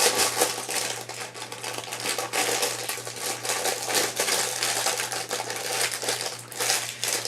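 Thin plastic packaging crinkling and crackling in quick irregular bursts as a foam squishy toy, a Hello Kitty donut, is squeezed inside it.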